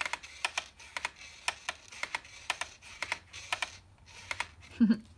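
Paper pull tab of a pop-up book being slid back and forth, its card mechanism clicking about twice a second. A brief, louder low sound comes near the end.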